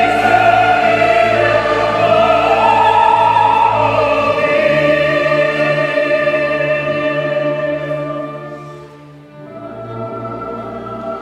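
Classical sacred music: sung voices with vibrato over a chamber orchestra, from a setting of the Mass. The held notes step up in pitch after about two seconds, then the sound dies away near nine seconds, and a softer sustained chord follows.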